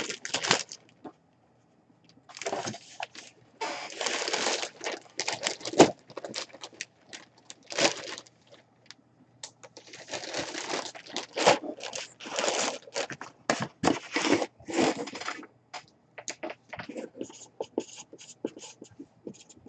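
Clear plastic bag crinkling and a cardboard box being handled, in irregular bursts of rustling and scraping with short pauses between them.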